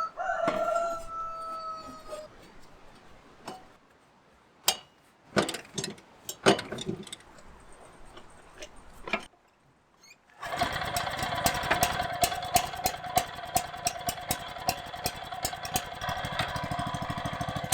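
A few sharp knocks and clacks, then about ten seconds in the Yanmar MRT650 cultivator's small engine starts abruptly and keeps running steadily with a fast, even pulse.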